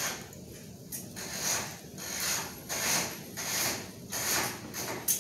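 Pencil scratching on paper close to the microphone in short repeated strokes, about one and a half a second, ending with a sharp tick.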